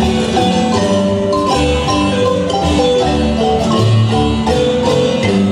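Marimba band playing a quick run of mallet notes over a steady bass line, amplified through a PA system.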